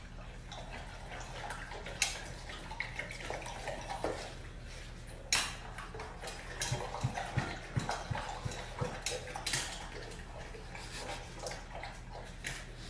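German Shepherd puppy lapping water from a raised stainless-steel bowl, with wet splashy licks and irregular clinks against the metal.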